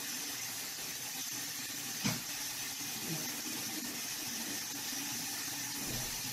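Bathroom tap running steadily into a sink, with one short knock about two seconds in.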